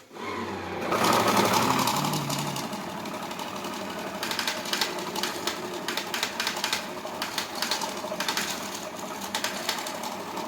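Banknote sorting machine running, notes passing through it in a fast, dense clatter of clicks. It starts up at the beginning, loudest over the first two seconds, then settles to a steady run.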